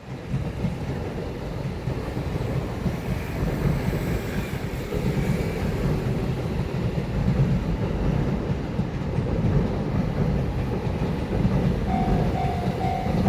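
A train running past at a railway level crossing, a steady low rumble. Near the end a level-crossing warning bell starts up, a repeated ding about twice a second.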